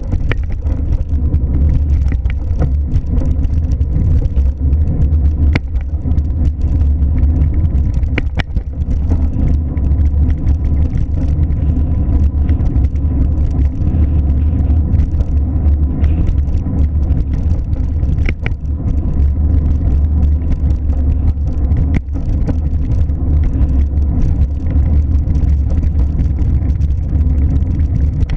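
Steady low rumble of a car running or driving, with a few faint clicks.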